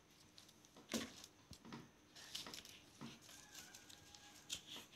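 Faint scattered clicks and rustles of small plastic toy parts being handled and pressed together, with a sharper click about a second in.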